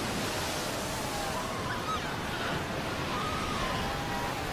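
Ocean surf breaking and washing in, a steady rush of churning water, with faint wavering bleats of Cape fur seal pups over it.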